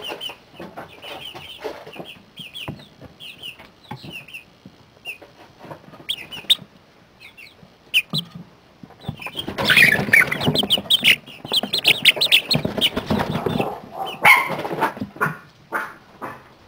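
A brooder full of 40-day-old chicks peeping, with many short high chirps. About ten seconds in, the chirping grows louder and busier, mixed with a rough rustling noise, for about five seconds before settling back.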